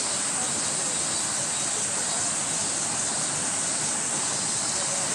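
Steady, even high-pitched hiss of outdoor background ambience, with no distinct events standing out.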